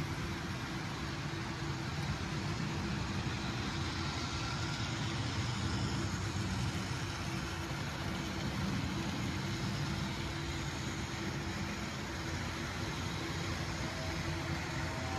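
Model train running on layout track: a steady rumble of wheels and motor with a faint steady hum.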